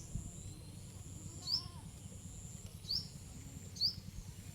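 A bird calling: three short, rising chirps a second or so apart, over a steady high whine and a low rumble.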